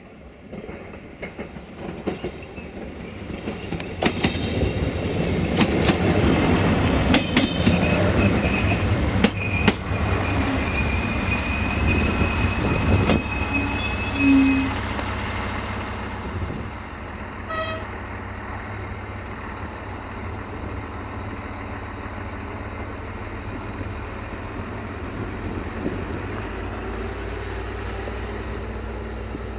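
Siemens Desiro VT642 diesel multiple unit passing, its wheels clicking over rail joints as it goes by, loudest through the middle. Its diesel engine then runs on steadily, with a short horn toot partway through.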